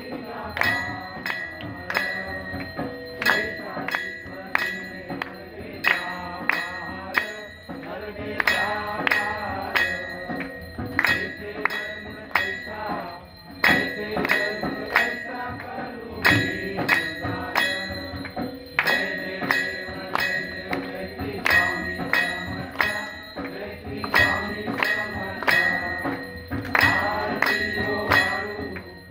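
Aarti being sung by a group of voices, kept in time by sharp metallic strikes about twice a second, over a ringing brass temple bell.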